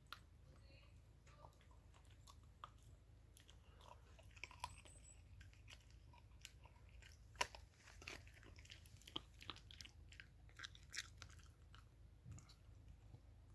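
Small dog chewing and crunching on a bone: faint, irregular cracks and clicks of teeth on bone, with a few louder crunches now and then.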